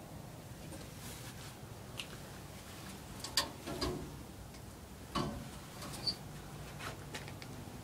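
Handling noise from a phone moving about in a truck cab: a few light, separate clicks and rustles, the clearest about halfway through, over a faint steady hum.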